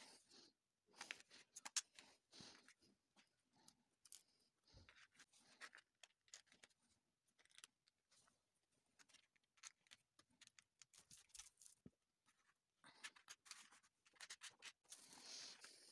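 Near silence with faint, scattered taps and rustles of small craft pieces being handled on a tabletop, busier near the start and near the end.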